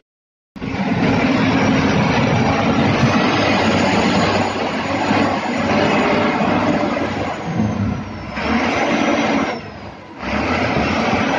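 Heavy wheel loader's diesel engine running loud under load as it scoops and pushes landslide rock with its bucket. The sound drops out for about half a second just after the start and dips briefly about ten seconds in.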